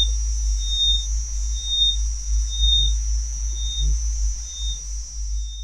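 Electronic drone soundscape: a loud, deep low rumble under a steady high-pitched whine, with a short high beep repeating about once a second.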